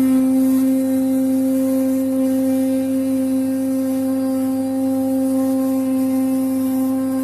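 CNC fabric cutter's vibrating knife running, a steady, loud hum held at one pitch.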